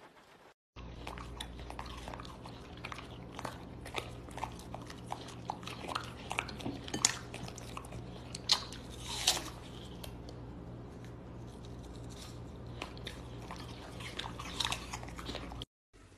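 A French bulldog chewing a snack: a run of irregular wet crunches and clicks, over a steady low hum.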